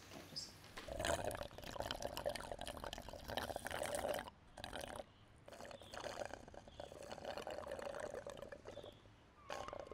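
Liquid being poured in two long pours, with a short break between them a little before the middle.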